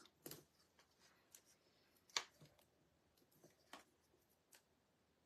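Near silence with a few faint clicks and rustles of paper being handled as foam adhesive dimensionals are pressed onto a die-cut cardstock piece.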